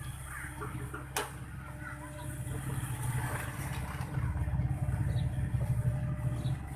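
Excavator's diesel engine running steadily, growing louder about four seconds in as it works harder. A single sharp click about a second in.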